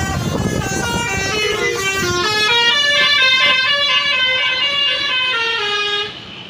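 Bus's basuri telolet horn playing a quick melody, several pitched notes sounding together and stepping from note to note, before it cuts off near the end.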